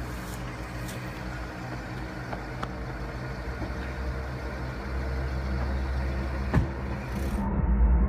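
A first-generation Honda CR-V driving slowly toward and past: steady engine hum and tyre noise on asphalt, growing louder as it nears. Just before the end the sound changes abruptly to a deeper, muffled rumble heard from inside the car's cabin.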